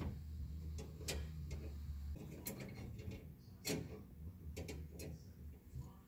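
Several sharp metallic clicks and taps at irregular intervals as a hex key works on an adjustable brake bias valve and its mount. A low steady hum runs underneath and eases after about two seconds.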